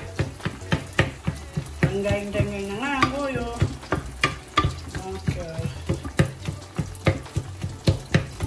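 Wooden spoon stirring leaves and vegetables in a stainless steel pot, knocking against the pot about three times a second over the sizzle of the cooking.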